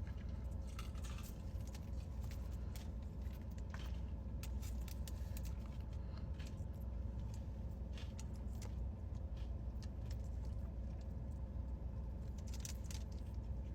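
A person chewing food, with scattered small clicks and smacks, over a steady low hum.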